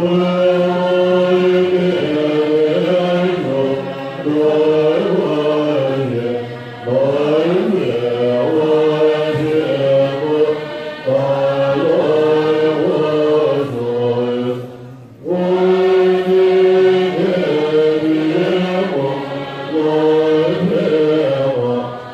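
Assembly of Tibetan Buddhist monastics chanting prayers together in a sustained, melodic unison, with a short break for breath about two-thirds of the way through.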